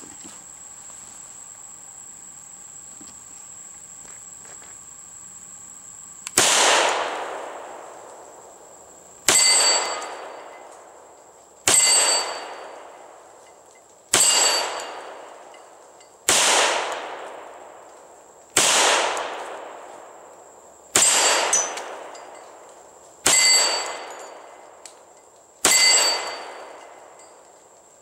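Hi-Point .45 ACP semi-automatic pistol fired nine times, one deliberate shot every two to three seconds, starting about six seconds in. Each report is sharp and loud, with a long tail that fades away over about two seconds.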